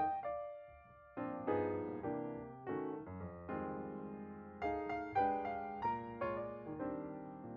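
Background piano music: a gentle melody of struck notes that fade, briefly thinning out about a second in.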